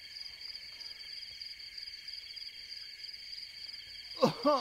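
Night-time cricket chorus, a steady high-pitched chirring, with two loud hoots about four seconds in.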